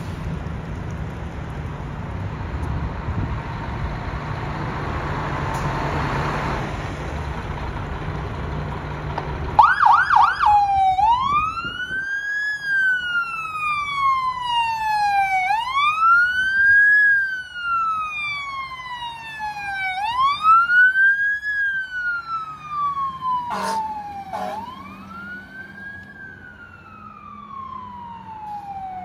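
Fire engine's diesel engine rumbling as it pulls out, then about ten seconds in its siren starts with a few quick whoops and settles into a slow wail, rising and falling about every four and a half seconds. Two short sharp sounds cut in about two-thirds of the way through, and the siren grows fainter toward the end as the truck moves away.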